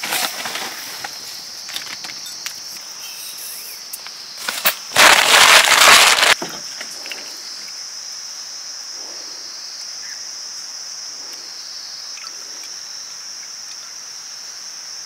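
Steady, high-pitched chorus of insects droning. About five seconds in, a loud rushing noise cuts across it for about a second and a half, then stops abruptly.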